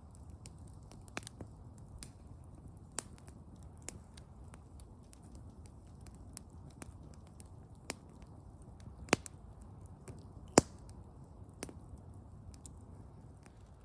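Wood fire crackling: irregular sharp pops over a low steady rumble, with two louder pops in the second half.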